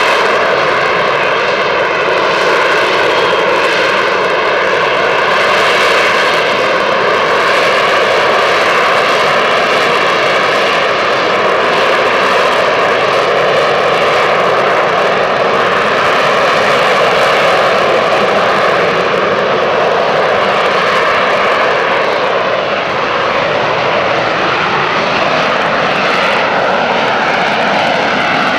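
McDonnell Douglas AV-8B Harrier II's Rolls-Royce Pegasus turbofan running loud and steady, a continuous jet roar whose tones shift slowly in pitch.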